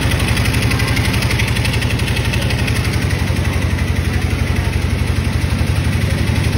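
Electrolux W4250S washer-extractor spinning its drum at high speed in the final extract: a loud, steady low drone with a fast regular pulsing.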